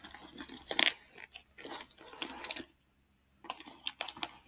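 Crinkling and rustling with irregular sharp clicks as crinkly stuffing is pulled out of a black handbag. The sound drops out entirely for about half a second near the middle.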